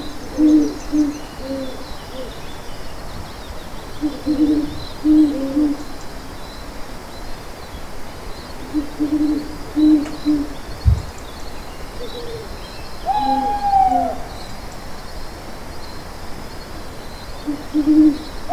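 An owl hooting in repeated phrases of several low hoots, a new phrase coming every four to five seconds. Partway through there is a higher, drawn-out call.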